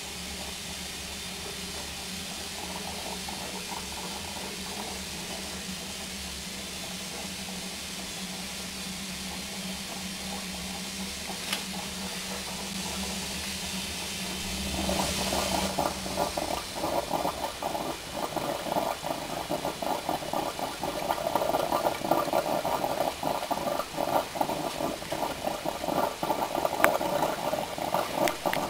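Steady steam hiss from a Darjeeling Himalayan Railway B class steam locomotive standing in steam, with a low hum under it. About halfway through, a louder, irregular rattling sound joins in and carries on.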